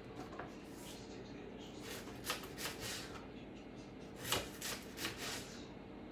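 Kitchen knife slicing through a raw potato and tapping the cutting board: short sharp cuts, a few about two seconds in and a quicker run of four or so past the middle, cutting the potato into french-fry strips.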